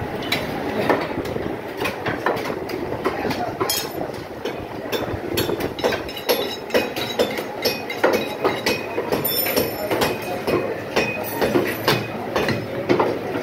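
Cleaver chopping goat meat on a wooden chopping block: sharp, irregular knocks that come thicker after the first few seconds, over a background of voices and clatter.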